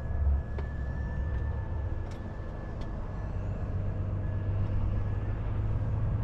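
Volvo FH460 truck's 13-litre six-cylinder diesel heard inside the cab: a steady low drone, growing a little louder as the truck gathers speed, with a brief low thump near the start and a few faint clicks.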